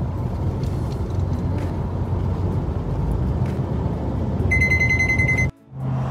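Car cabin noise while driving: steady engine and tyre rumble on the road. Near the end a high, steady electronic beep sounds for about a second, and then the sound cuts off abruptly.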